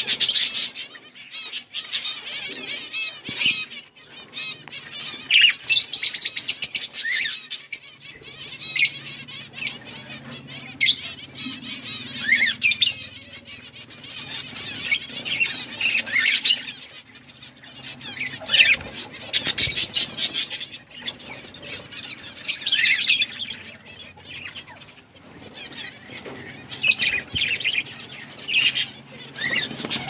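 A flock of budgerigars chattering, with quick high chirps and warbling calls that come and go in many short bursts.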